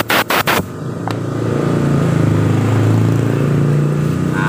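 Quick blasts from a compressed-air blow gun, about four a second, clearing a blocked small port in a motorcycle's front brake master cylinder, stopping about half a second in. Then a steady low motor hum builds up and keeps running, typical of the workshop's air compressor motor starting and running.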